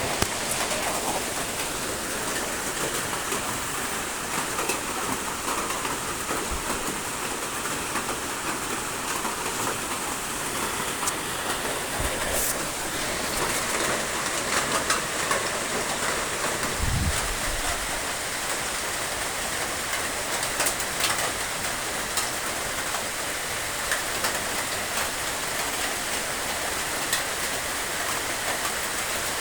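Steady rain falling, with individual drops tapping on a surface. There is a short low thump about seventeen seconds in.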